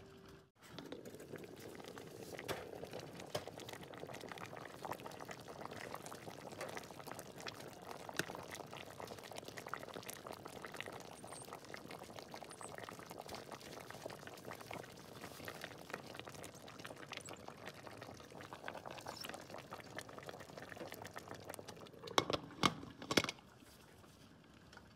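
A pot of lamb stew with marqooq dough sheets bubbling steadily at a simmer, with many small pops and crackles. A few louder knocks come near the end.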